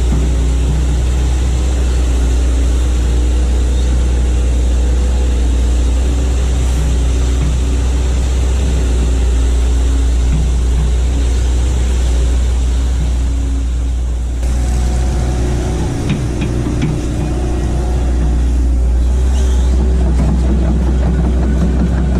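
Hitachi hydraulic excavator's diesel engine running steadily with a deep rumble. Its tone shifts about two-thirds of the way through.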